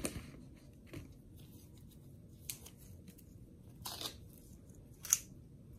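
A handful of short crinkling rustles and ticks, about five, spread through a quiet room, the sharpest one near the end.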